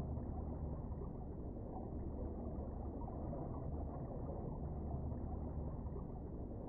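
Steady, muffled low rumble of still water heard through an underwater camera housing, with a faint low hum and almost nothing in the treble.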